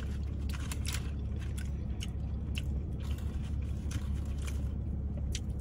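Close-miked eating of seafood: biting and chewing with scattered crunches and small clicks, over a steady low hum.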